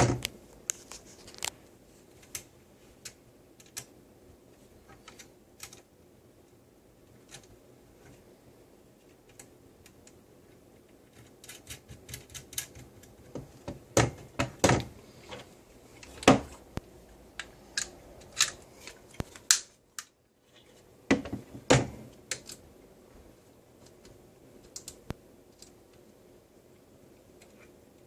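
Irregular clicks and taps of small metal and plastic parts being handled: the screws and front-end parts of an M4 airsoft gun being set back in place during assembly. The clicks are sparse at first and come in quick clusters in the middle and again a little later.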